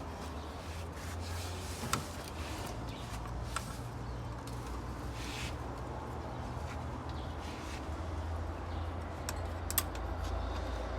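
A steady low hum with a few sharp clicks and taps, as parts are handled while an automatic transmission is being assembled.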